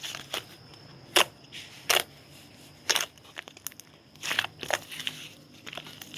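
Someone biting and chewing a crunchy corn-cheese snack, giving a string of sharp, uneven crunches.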